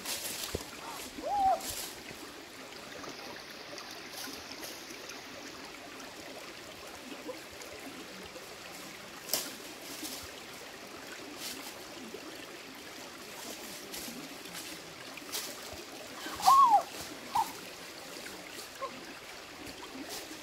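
A steady rush of running water, with scattered crackles and snaps of dry leaves and twigs as someone moves through undergrowth. A few short arched chirp-like calls sound about a second and a half in, and again, loudest, around sixteen to nineteen seconds in.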